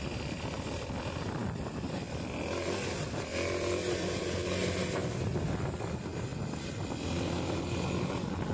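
Honda XR250 Tornado's single-cylinder four-stroke engine running steadily while the bike rides along a dirt track, heard from the handlebars. Wind and road noise are mixed in with it.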